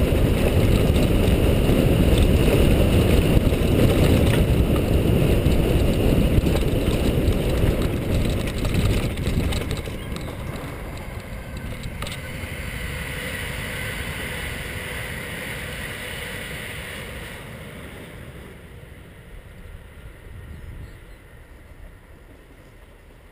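Wind buffeting a GoPro's microphone, with tyre rumble, as a mountain bike rides fast down a dirt trail. The noise is loud for the first half, then dies away steadily as the bike slows to a stop.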